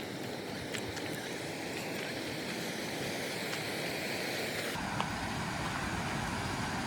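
Steady rushing of falling water from a waterfall. About five seconds in it changes abruptly to a deeper, fuller rush.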